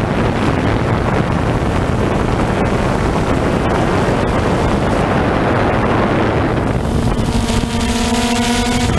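Multirotor drone's motors and propellers running, heard from the drone's own camera, with heavy wind rushing over the microphone. About seven seconds in, a steady propeller hum comes through clearly above the rush.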